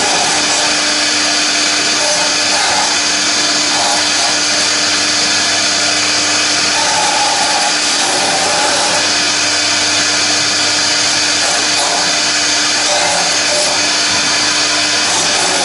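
CNC router spindle milling a foam block turned on a rotary axis. A steady, loud high whine and hiss of the cutter runs over a constant hum, with a mid-pitched tone that swells and fades every few seconds.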